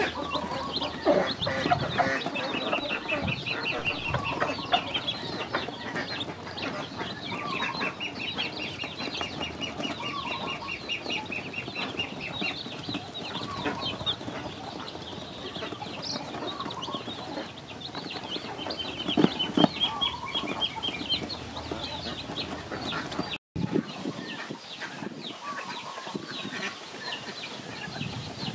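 Ducklings and chicks peeping as they peck at feed, in quick trains of high, rapid peeps over a constant chatter of smaller calls.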